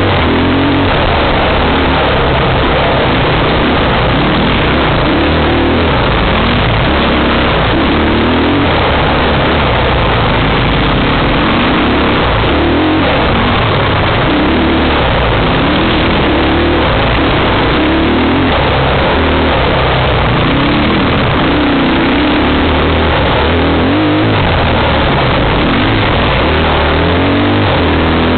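Off-road vehicle engine revving up and dropping back over and over, every couple of seconds, as it is ridden along a dirt trail, under a steady loud rush of noise.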